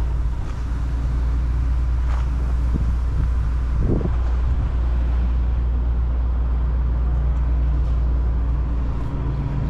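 Steady low drone of an engine running at an even idle, without revving.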